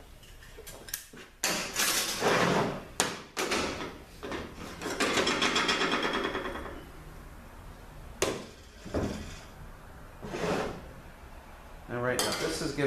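4L80E overdrive clutch plates (steel plates and friction discs) being handled and set down on a steel workbench: irregular sharp metal clinks and clatter, with a steadier stretch of metallic noise lasting about two seconds midway.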